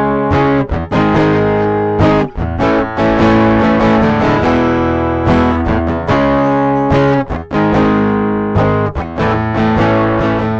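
Guitar played through the newly built JHS NOTAKLÖN overdrive pedal with a lightly driven, distorted tone, picking a run of notes and chords that ring on under each new attack.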